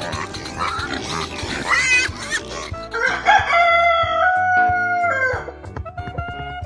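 Pigs grunting and squealing, then about three seconds in a rooster crows once, a long call that holds and falls away at the end.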